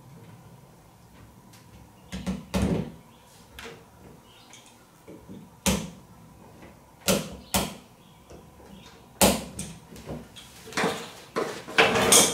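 Irregular knocks and clunks of plastic sprayer parts and hoses being handled during assembly, about ten separate knocks with a busier clatter near the end.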